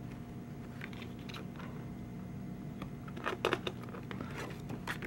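Glossy photobook pages being turned and handled: short papery rustles and flaps, loudest in a cluster about three and a half seconds in, over a steady low hum.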